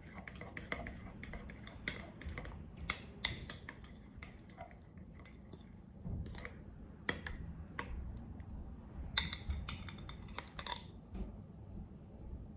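Light clinks and taps of a utensil against a bowl or container, irregular and scattered, with a brief cluster of sharper clicks about nine seconds in.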